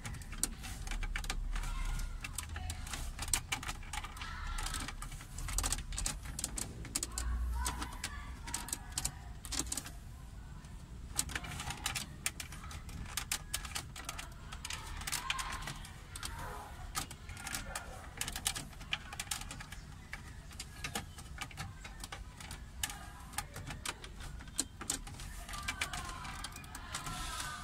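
Rapid clicking and rattling of plastic wiring connectors and dash trim being handled and plugged in behind a car's stereo opening.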